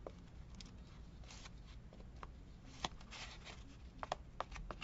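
Faint rustling and light clicks of paper and corrugated cardboard being handled, with a cluster of sharper taps in the last couple of seconds.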